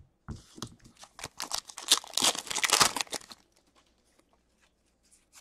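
Wrapper of an Upper Deck hockey card pack being torn open and crinkled, a run of crackling lasting about three seconds that then stops.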